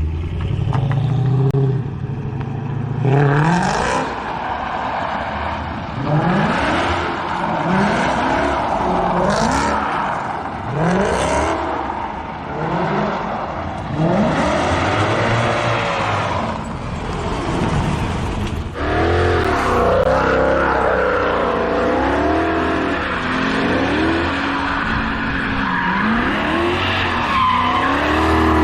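Mercedes-Benz C63 AMG wagon's V8 revving hard again and again, with the rear tyres squealing and scrubbing as the car skids on its welded differential. The revs rise in repeated sweeps for the first half, then waver up and down under steady tyre noise from about two-thirds of the way in.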